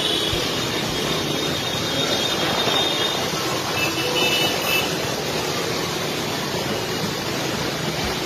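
Traffic on a flooded street: motorcycle engines running and water washing under their wheels as a steady noisy wash, with faint high tones briefly about four seconds in.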